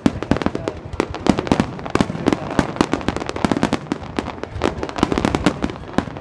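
Fireworks barrage: many aerial shells bursting in quick, overlapping succession, a dense run of bangs and cracks several a second with no pause.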